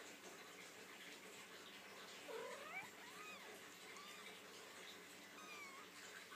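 Three-week-old kittens mewing: several thin, high calls that rise and fall in pitch, starting a little over two seconds in, over a faint hiss.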